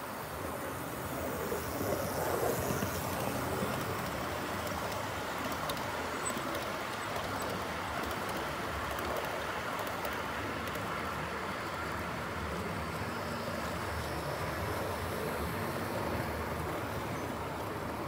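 Liliput model trains running on the track: a steady rumble of small wheels rolling on rails and the locomotives' electric motors, swelling slightly a couple of seconds in.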